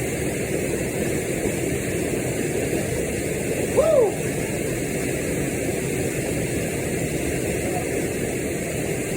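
Steady rushing of a waterfall and pools, an even unbroken roar. About four seconds in comes one short call that rises and then falls in pitch.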